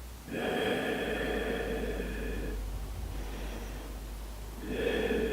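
A person taking slow, deep breaths held in a yoga pose: two long breaths, the second starting near the end.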